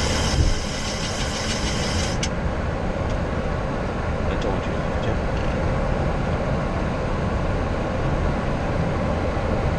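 Boeing 737-800 rolling slowly on the ground after landing, heard from the cockpit: a steady low rumble of idling engines and tyres. A thump about half a second in, and a higher hiss stops abruptly with a click about two seconds in.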